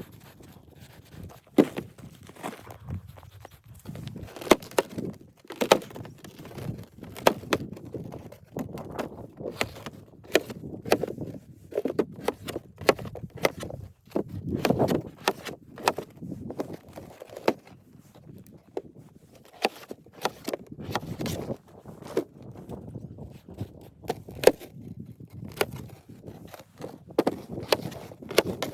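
A long run of irregular sharp knocks and clicks, a few a second, with softer crunching in between, like objects being handled and set down.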